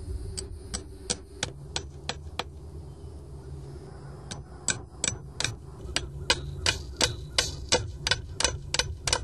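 Hammer driving two stainless steel nails with washers through a nylon webbing strap into a wooden fence post: a run of quick, even taps about three a second, a pause of nearly two seconds, then a longer run of taps.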